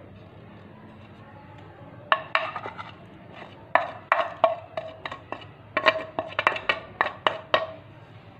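Crockery clinking as spices are knocked into a mixing bowl: about a dozen sharp taps against the bowl, each with a short ring, starting about two seconds in and running in quick, uneven groups for some five seconds.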